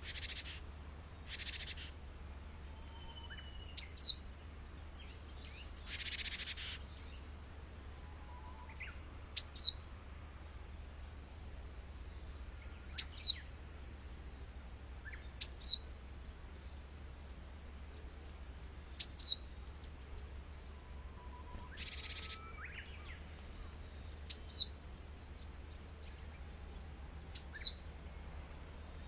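Japanese tit (Parus minor) calling close by: a sharp, high two-note call, each note dropping in pitch, repeated about every three seconds. A few short rustles come in between, near the start and about two-thirds of the way through.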